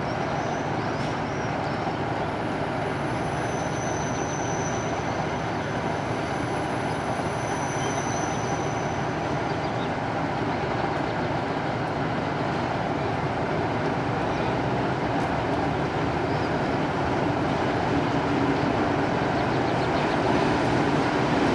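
Diesel railcar's engine running as it pulls a train of coaches slowly along the platform, with the rumble of the train rolling on the track. It gets a little louder near the end as the train comes closer.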